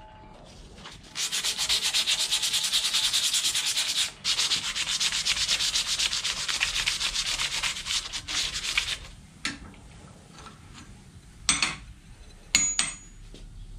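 Fast back-and-forth abrasive rubbing by hand on the edge of a flat metal bracket, smoothing it, with a short break about four seconds in. The rubbing stops about nine seconds in and is followed by three sharp knocks.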